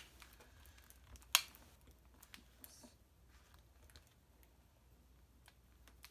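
Quiet handling of a retractable soft tape measure laid across a plastic-wrapped canvas: faint light ticks and one sharp click about a second and a half in.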